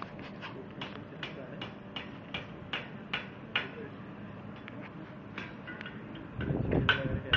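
Hammer blows on an anvil as a chain link is forged by hand: a steady run of sharp taps, about two and a half a second, then lighter, sparser taps. A louder low rumble comes in near the end.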